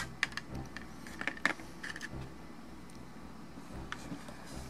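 Small plastic clicks and taps from blue plastic miniature parts and their sprue being handled, with hobby sprue cutters. A scatter of short sharp clicks, most in the first two seconds, one more about four seconds in.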